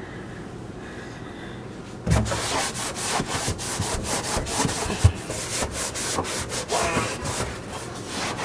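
Hand scrubbing on a greasy metal stove range hood: quick back-and-forth rubbing strokes that start suddenly about two seconds in and keep going.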